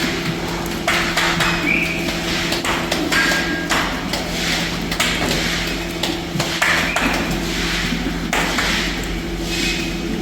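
Repeated metallic knocks and clanks over a steady machine hum, with short rushes of hiss now and then.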